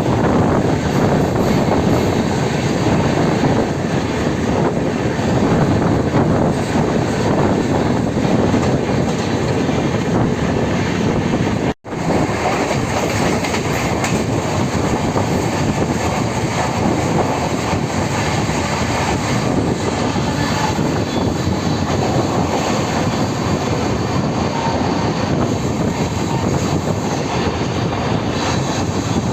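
Jan Shatabdi Express train running along the track with a steady rumble of wheels and rushing noise. The sound breaks off for an instant a little before halfway, then carries on as before.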